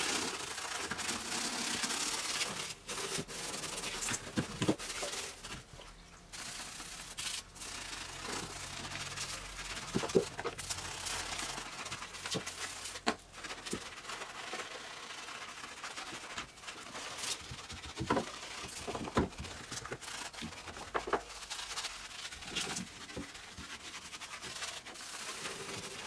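Gloved hands scrubbing and wiping cleaner around the inside of a car's wheel arch: an uneven rubbing and scraping with scattered sharp clicks and knocks.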